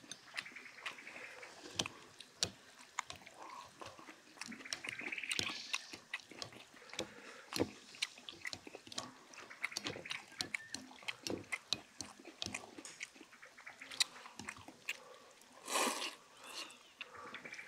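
Chopsticks clicking and scraping against stainless steel bowls, with chewing, as two people eat noodles. About sixteen seconds in comes a loud slurp of noodles.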